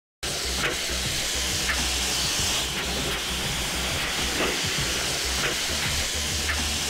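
High-pressure jet of fluid hissing steadily as it sprays from the end of a horizontal drilling rod, with light ticks about once a second.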